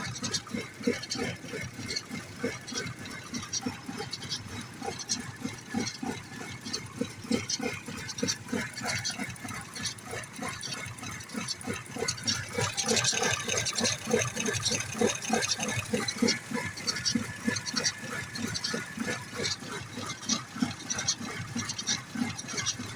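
Hyundai Azera engine idling roughly, with an uneven pulsing chuff about two to three times a second from a random multiple-cylinder misfire (P0300), the sputtering and shaking that the owner describes.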